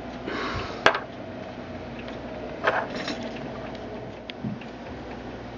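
Handling noise as small brass spirit burners are picked up and set down on a tabletop: a sharp knock about a second in and a second clatter near three seconds, with a few lighter ticks between.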